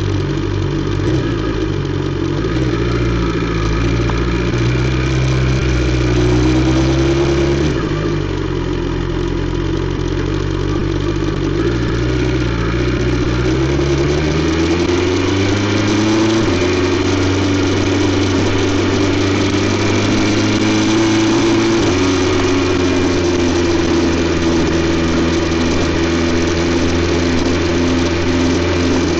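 BMW S 1000 XR's inline-four engine through an Akrapovic exhaust, pulling under way. Its pitch climbs and then drops suddenly about 8 and 16 seconds in, as at upshifts, and then holds a steady note.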